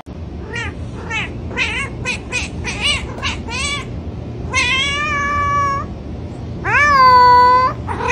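Cat meowing insistently: a quick string of about ten short meows, roughly three a second, then two long drawn-out meows, the last one the loudest.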